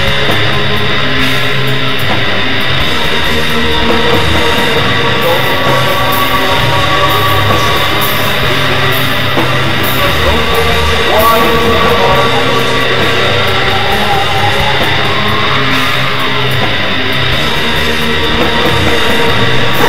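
Raw doom/black metal: distorted electric guitar in a dense, continuous wall of sound at a steady loud level, with a dull, muffled top end.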